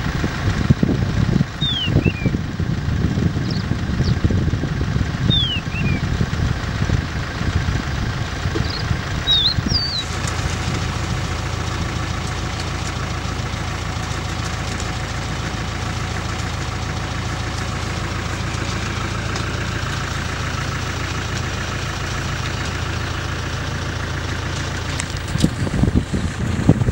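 Safari vehicle's engine running: an uneven low rumble for the first ten seconds, then a steady idling hum, with a renewed rumble near the end. A few short falling chirps, bird calls, sound in the first ten seconds.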